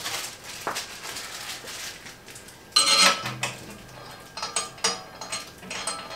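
Small metal screws clinking and rattling as they are handled and set into a resin 3D printer's metal vat, with one louder ringing clank a little under three seconds in, followed by a run of small clicks.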